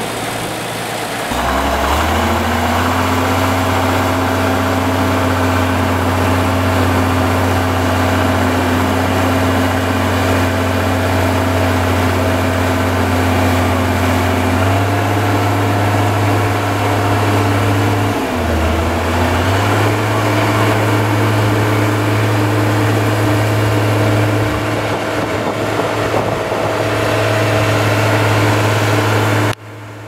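Heavy diesel engine of road-building machinery running under load with a steady low note. Its pitch steps up about halfway through, dips briefly a few seconds later and recovers, and the sound drops off suddenly just before the end.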